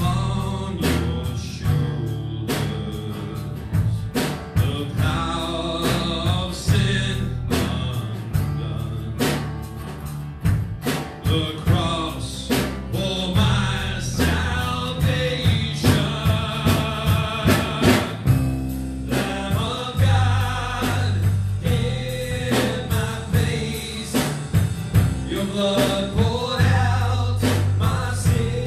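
Live band playing a worship song: a singer with acoustic and electric guitar over a steady drum kit beat.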